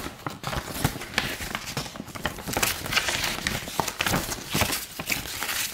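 Paper and plastic packaging being handled, with dense, irregular crinkling, rustling and small clicks.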